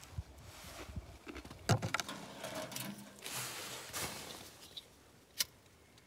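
Handling noise as twigs and a wad of paper are pushed into the firebox of a small metal tent wood stove: scattered knocks and rustling, with a cluster of sharp clicks about two seconds in and a single sharp click near the end.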